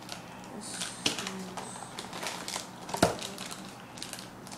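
Toy packaging being handled and opened, crinkling and rustling, with a sharp click about a second in and a louder snap about three seconds in.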